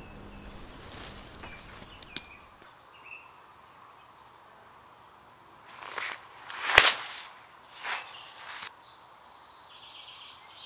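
Footsteps crunching and rustling through forest undergrowth, a short run of loud crunches from about six to nine seconds in, with faint bird chirps.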